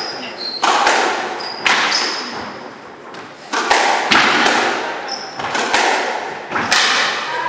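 Squash rally: a rubber squash ball struck by rackets and smacking off the court walls, sharp hits about once a second, each echoing in the enclosed court. Short high squeaks come from court shoes on the wooden floor.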